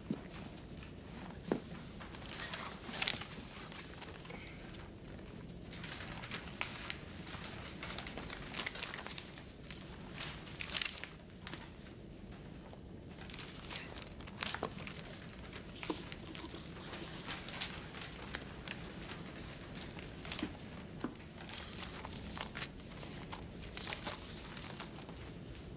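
Paper rustling and crinkling with pencil scratches, as test sheets held on laps are handled and written on. It comes as short, irregular rustles over a quiet room.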